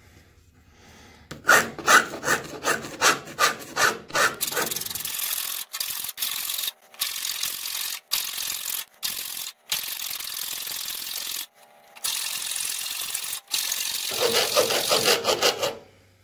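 Hand file rasping along the edge of a thin sheet-metal blank held on a wooden board, filing the bandsaw-cut edge back to the scribed line. It starts about a second in with a run of short, quick strokes, goes on with longer strokes broken by brief pauses, and ends in another quick run.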